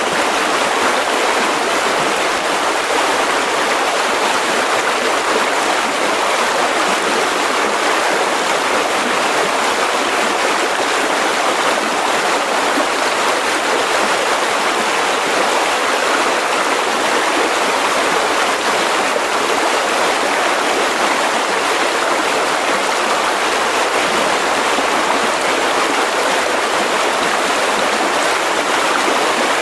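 Mountain river rushing over rocks: a steady, unbroken rush of flowing water.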